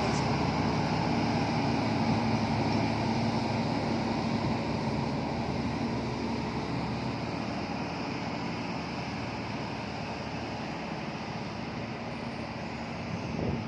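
Hino FM1J diesel truck towing a loaded LPG tanker semi-trailer, its engine running as it drives slowly past and away, the sound fading gradually.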